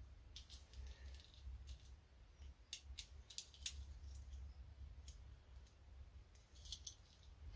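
Faint, irregular light metallic clicks and ticks as a thin jet-cleaning wire is poked into and worked through the passages of a small lawnmower carburettor, over a low steady hum.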